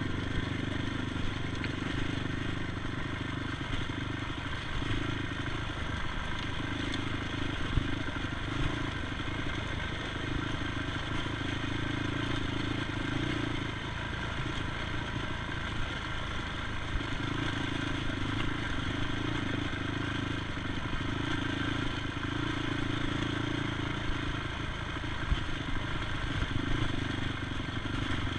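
ATV engine running steadily under way, its note swelling and easing every few seconds, with a few sharp knocks over it.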